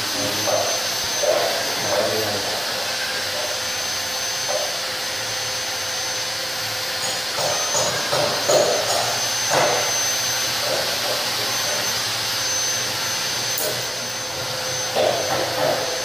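Steady loud rushing noise with a thin, high, steady whine, like a fan or blower motor running, with a few soft scrapes and a couple of faint clicks past the middle.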